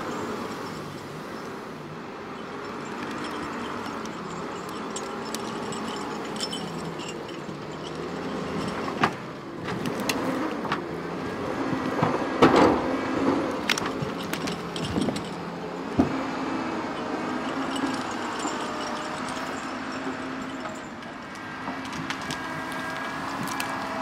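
Grapple skidder's diesel engine running, its pitch shifting as the machine works. Sharp wooden knocks and cracks come as the grapple closes on a bunch of snow-covered logs and branches: one about a third of the way in, a louder cluster near the middle, and another shortly after.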